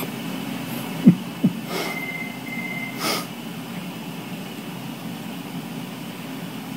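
A young boy's hiccups: two short, sharp hiccups in quick succession about a second in, over a steady background hum.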